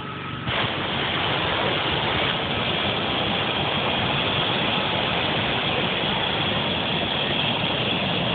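Hot-air balloon's propane burner firing: a loud, steady rushing blast that starts abruptly about half a second in and holds without a break.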